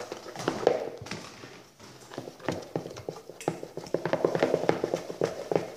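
Homemade shaving-foam and dish-soap slime being worked in a bowl, giving rapid, irregular clicking and knocking that grows denser in the second half. The mixture has not set into slime.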